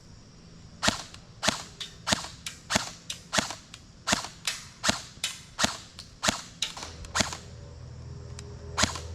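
Valken ASL+ Foxtrot45 airsoft electric rifle firing a rapid string of about twenty sharp single shots, about three a second, starting about a second in, then one more shot near the end.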